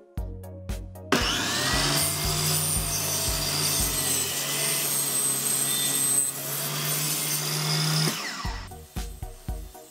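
A table saw blade ripping through a white-faced MDF panel in one steady cut with a low motor hum. It starts abruptly about a second in and cuts off near the end, over background music with a beat.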